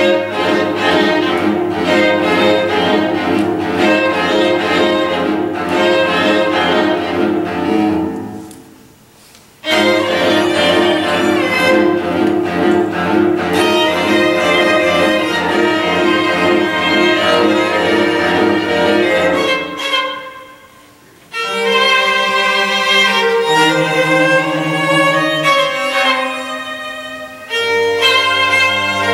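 String quartet of two violins, viola and cello playing. The music breaks off briefly about nine seconds in and again about twenty seconds in, then starts again, and the last part moves in longer held notes.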